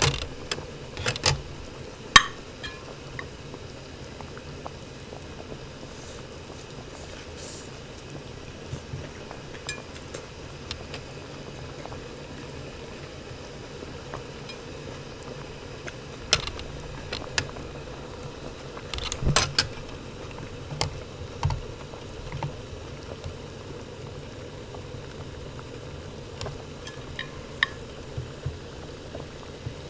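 Hot-pot broth simmering in a steel pot on the table, a steady bubbling. Now and then sharp clinks of metal ladle, tongs and chopsticks against the pot and plate, the loudest a few near the start and a cluster about 16 and 19 seconds in.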